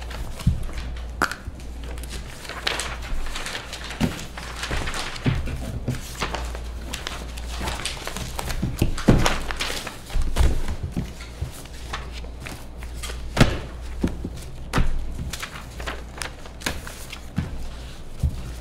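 Paper sheets and manila folders handled close to a table microphone: pages rustling and flipping, with irregular thunks and knocks as folders and pens are set down on the table, over a steady low hum.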